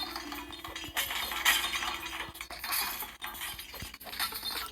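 Game sound effects: a rapid run of small clinks and glassy breaking sounds, many quick hits in a row.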